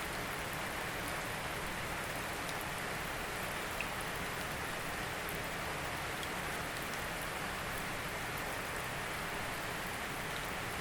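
Steady rain falling, an even hiss with the odd sharper drop tick.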